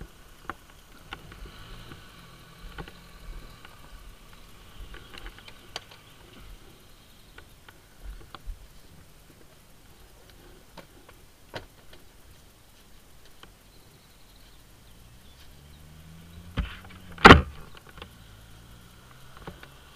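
Small clicks and knocks of a bottle and gear being handled in a scooter's under-seat storage, then, about three-quarters of the way through, the scooter seat shut with a single loud thump.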